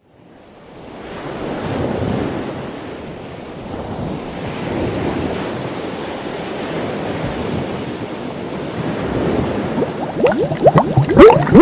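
Underwater water sound effect: a rushing wash of water fades in and swells and ebbs like surf, then bubbling starts near the end.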